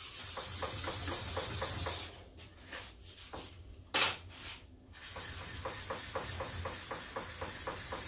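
A steel plane blade rubbed flat against a coarse sharpening stone in quick back-and-forth strokes, about five a second: the back of a rust-marked blade being re-ground to remove the blemishes. The strokes pause about two seconds in, with a sharp click near the middle, then start again.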